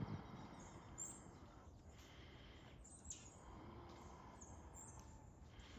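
Near silence: faint outdoor background noise with a few faint, short, high bird chirps.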